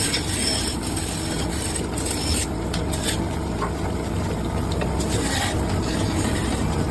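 Tool scraping and rasping on a wooden charpai leg as it is shaped, in stretches that come and go over a steady low motor hum.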